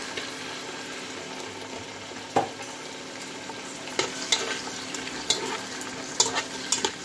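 Green peas and freshly added sliced onions sizzling steadily in hot oil in a metal kadai. A few sharp clicks come in the second half.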